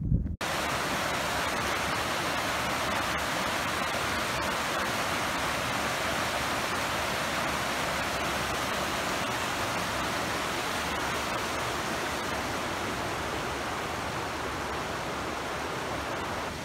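Small rocky burn rushing over stones and boulders: a steady, even rush of white water.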